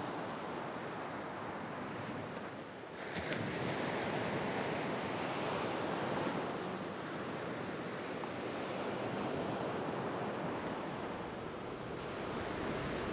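Ocean surf washing onto a beach: a steady rush of waves that swells a little about three seconds in.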